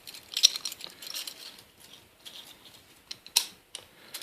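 Small metallic clicks, scrapes and rattles from a skeleton-key bypass tool worked in a vintage Reese padlock, irregular, with one sharper click about three and a half seconds in.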